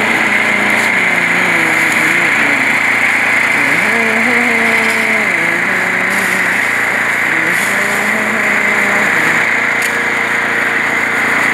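Small gasoline engine of a portable concrete mixer running steadily while the drum turns the mix.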